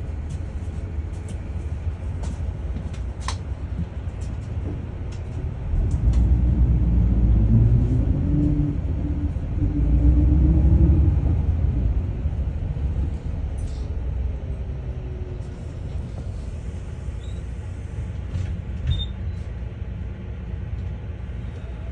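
Daewoo FX116 bus engine heard from inside the cabin as it drives, with a steady low rumble. About a quarter of the way in it grows louder under acceleration, the engine note rising twice, then it eases back to a steadier drone.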